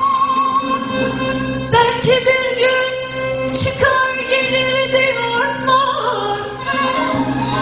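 A woman singing a Turkish folk song (türkü) with vibrato, accompanied by an ensemble of bağlamas.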